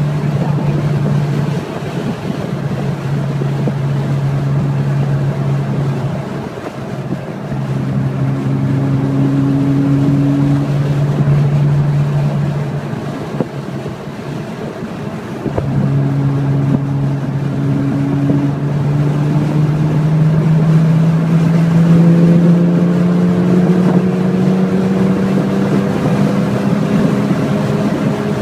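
Engine running steadily with wind noise on the microphone. Its hum fades out briefly a few times, then rises slowly in pitch through the second half as it speeds up.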